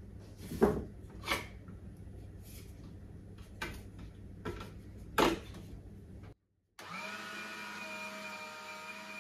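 A few sharp knocks and clicks of a utensil being handled. Then, after a brief gap, an electric meat grinder's motor runs steadily with a whine as it extrudes cookie dough.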